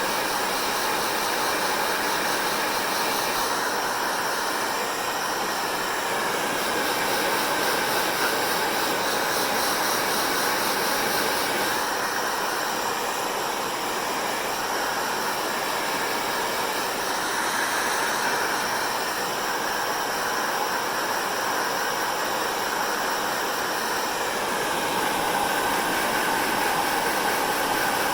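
Hair dryer running steadily: a continuous blowing of fan and airflow with a faint whine that wavers slightly in pitch.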